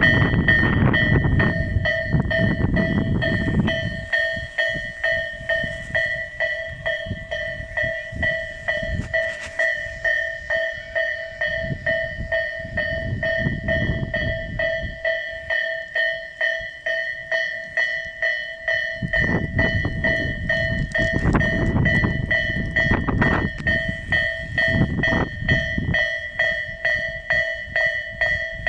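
Railway level-crossing alarm ringing steadily, its bell tone repeating rapidly and evenly. Irregular gusts of wind buffet the microphone over it.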